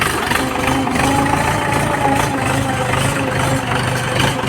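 A heavy engine running steadily at idle, with an even, level pitch.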